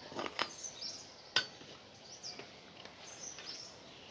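A few light metal clicks and one sharp, loudest click about a second and a half in as small bicycle parts are handled and fitted to the frame, with birds chirping in the background.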